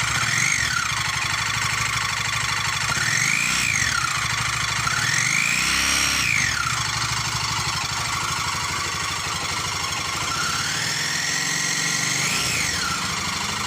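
Honda CBR150R's single-cylinder four-stroke engine idling and revved four times with the throttle, each rev rising and falling back to idle; the longest comes about halfway through. The owner hears a strange noise in the engine and is looking for its cause.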